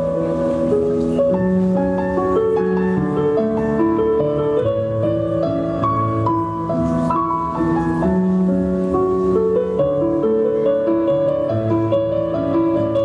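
Instrumental polonaise dance music, with notes held long and changing every half second or so.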